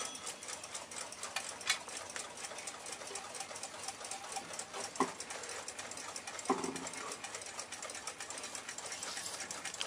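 Western Clock Company pin-lever alarm clock movement from 1906 ticking fast and evenly, with a few louder knocks from the clock being handled.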